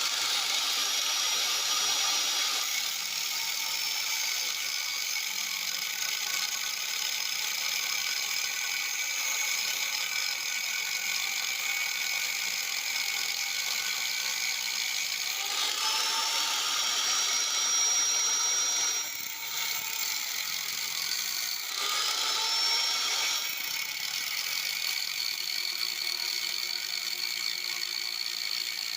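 Electric drill motor running with a steady high whine while it works a stripped threaded hole in a chainsaw's casing for re-threading. It dips briefly about two-thirds through, then spins back up with a rising pitch.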